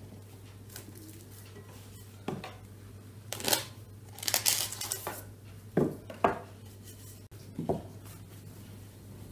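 Plastic cling film stretched over a glass bowl and cut with a knife: a stretch of crinkling and tearing of the film in the middle, with a few short, light knocks as the film roll and bowl are handled.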